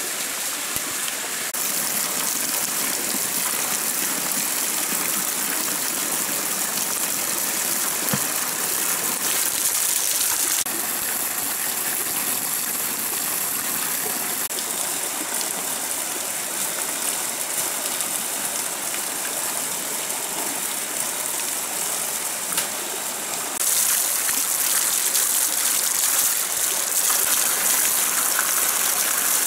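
Water gushing steadily from an open bamboo pipe and splashing onto the rocks of a small stream, over the rush of the stream itself. The rush steps up and gets louder near the end.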